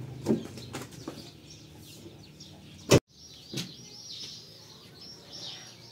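A low steady hum with a few knocks, then a sharp loud click about halfway, after which small birds chirp in many quick, high chirps.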